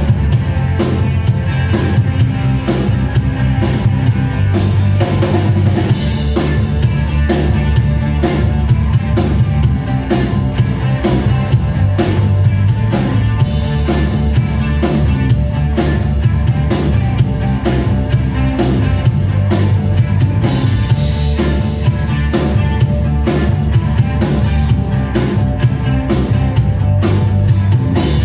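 Live rock band playing: a drum kit keeping a simple, steady beat that stomps on the fours, with electric guitar and bass guitar.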